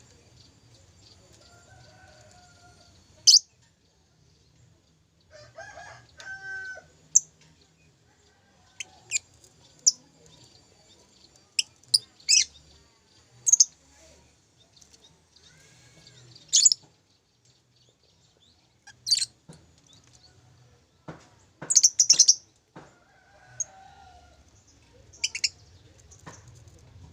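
Lovebird giving short, sharp, shrill chirps one at a time at irregular intervals, with a quick run of several about three-quarters of the way through.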